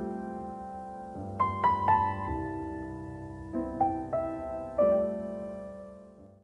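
Piano music: a few chords struck and left to ring, fading out near the end.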